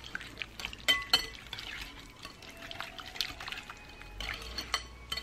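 Wire whisk stirring thick cranberry sauce and dressing in a glass bowl: wet squelching and sloshing with light clinks of the wires against the glass, including a couple of sharper clinks about a second in.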